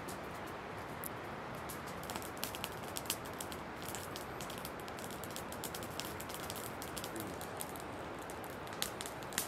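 Steady outdoor background hiss with many faint, irregular ticks and crackles scattered through it.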